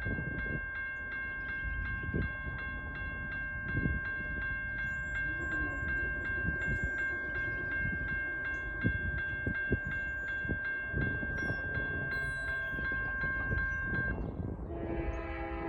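Grade-crossing warning bell ringing in rapid, even strikes over a low rumble. Near the end the bell stops and a locomotive air horn starts to blow.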